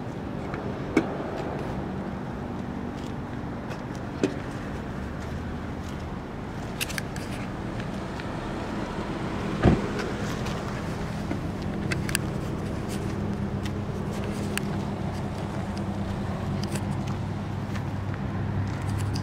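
Steady low engine hum, growing a little louder in the second half, with sharp clicks about one, four and ten seconds in, the last the loudest.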